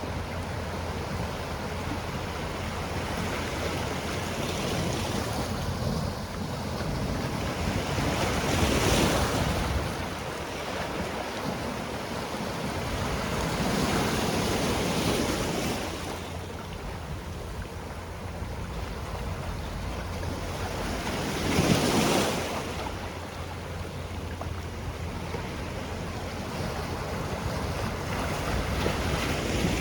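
Sea waves washing onto the shore: a continuous hiss of surf that swells as a wave breaks every six to eight seconds, the loudest about two-thirds of the way through.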